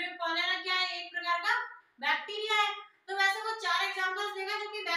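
A high-pitched voice chanting in long, level, sing-song tones, with two short breaks about two and three seconds in.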